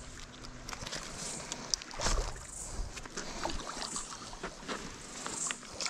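Small water splashes as a hooked Australian bass thrashes at the surface of the creek, with scattered light clicks and a heavier knock about two seconds in.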